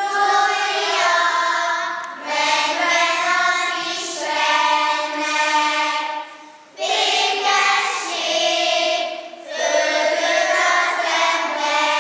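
A group of children singing together in a church, in phrases broken by short pauses about every three seconds.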